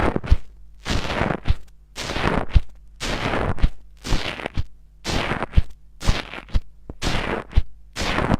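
Crunchy slime squeezed and pressed by hand, crackling and popping in repeated bursts about once a second, each ending in a short sharp click.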